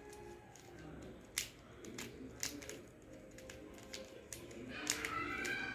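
3x3 mirror cube being turned by hand: irregular plastic clicks and clacks as its layers snap round, a few louder than the rest.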